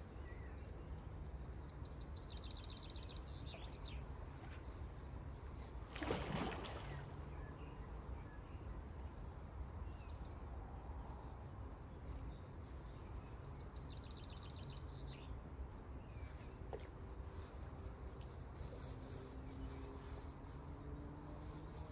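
Lakeside outdoor ambience: a steady low rumble with a bird's short rapid trill twice, and a brief louder sound falling in pitch about six seconds in.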